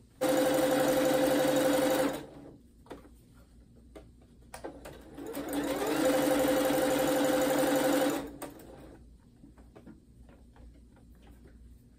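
Electronic household sewing machine stitching in two runs. The first lasts about two seconds and starts and stops abruptly. After a pause the second speeds up over about a second, holds a steady hum for about two seconds, then stops.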